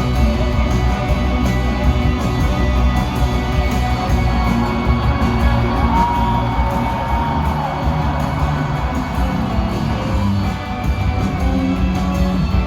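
Live rock band music heard through the crowd at a concert, full band playing steadily, with one long held note about halfway through.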